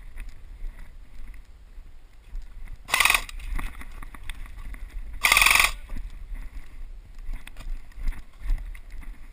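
Two short bursts of airsoft gunfire about two seconds apart, the second a little longer, over a low steady rumble.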